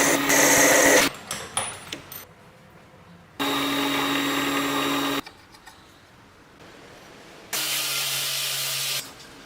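An electric power tool run in three short bursts of a second or two each, its motor humming steadily at one pitch and stopping sharply between bursts, with small clicks in the pauses.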